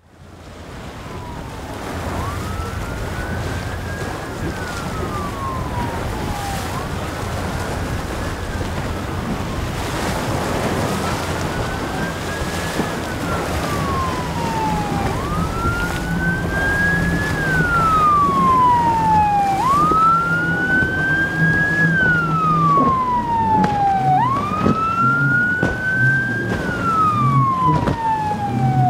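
Police boat siren wailing, rising quickly and falling slowly about every four seconds, growing louder as the boat approaches. Under it runs the steady drone of the boat's outboard engine and the rush of its hull through choppy water.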